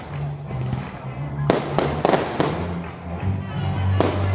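Aerial fireworks shells bursting, a quick run of four bangs about halfway through and another near the end, over music with a steady bass line.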